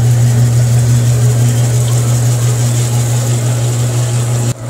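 Wet shaker table running: a steady low mechanical hum from its drive, unchanging throughout, with a brief break near the end.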